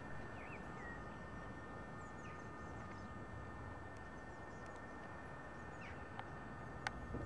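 Faint outdoor background: small birds chirping now and then over a steady low rumble, with one sharp click near the end.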